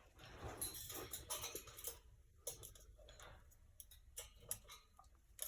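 Faint scattered clicks and ticks, with a soft rustling over the first two seconds.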